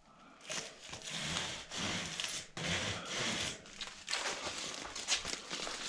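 Hands pressing and rubbing strips of reflective vapour-barrier foil onto metal drywall profiles: a series of scraping, crinkling strokes.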